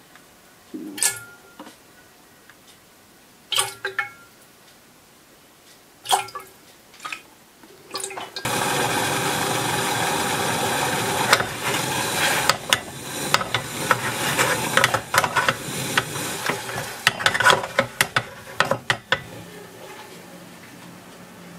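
A few light knocks, then dashi, soy sauce and mirin in a hammered pan coming to a boil about a third of the way in: a steady bubbling hiss with many sharp pops, which eases off near the end.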